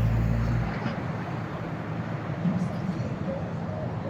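Low engine rumble that fades out about a second in, over steady outdoor traffic and city noise.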